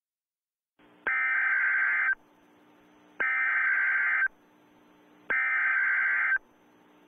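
Emergency Alert System SAME header: three identical bursts of screechy digital data tones, each about a second long with about a second's pause between them. This is the coded header that opens an EAS Required Weekly Test on NOAA Weather Radio.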